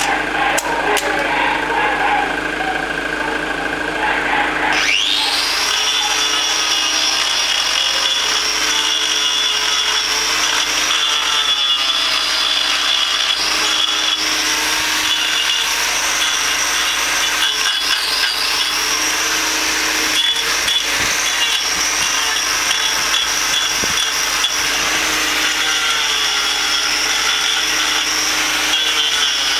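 A handheld power grinder with a hoof-trimming disc spins up about five seconds in, then runs with a steady high whine and a scratchy rasp as it cuts the cow's hoof horn, its pitch dipping briefly when it bites harder. Before that, a motor hums steadily.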